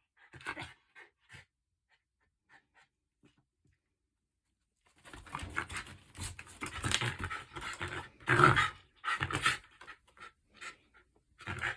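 Shiba Inu dog panting and huffing in quick noisy bursts, worked up with hunger. After a few faint sounds and about three seconds of quiet, the panting starts about five seconds in.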